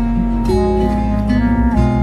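Background music: sustained chords with a plucked guitar, the notes changing about every half second.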